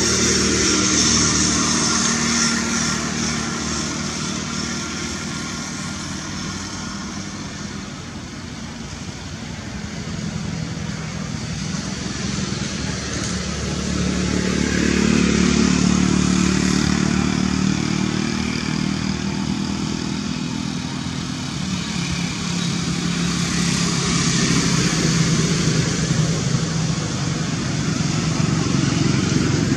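Engine noise of passing motor vehicles, a steady hum that swells and fades several times, loudest about halfway through.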